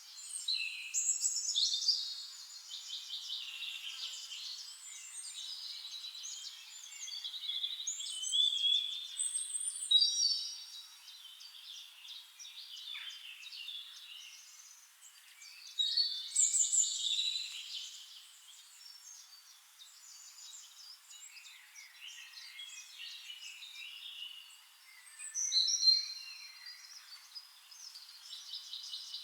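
Several songbirds chirping and singing over one another in high-pitched, overlapping phrases. The song swells into louder bursts every several seconds.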